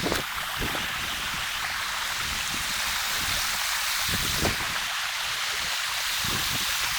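Steady rush of flowing stream water, with a few dull low knocks near the start and about four seconds in.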